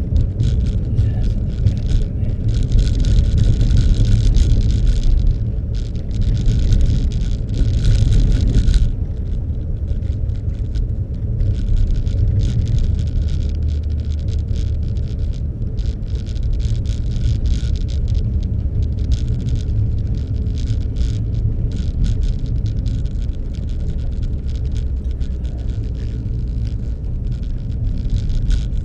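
Steady low rumble of a car's engine and running gear. Over it is a crackling, rattling noise that is loudest in two stretches, from about 2 to 5 and 6 to 9 seconds in, then keeps up as scattered clicks.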